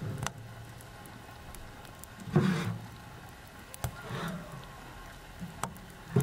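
Handling noise from objects being moved by hand: a few light knocks and a dull clunk about two and a half seconds in, over a low steady hum.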